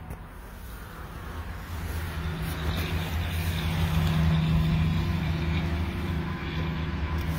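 Vehicle engine idling: a steady low hum that grows louder over the first few seconds and then holds.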